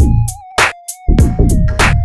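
Electronic background music: deep drum-machine kicks that drop in pitch, sharp snare hits, and a thin synth melody held over them.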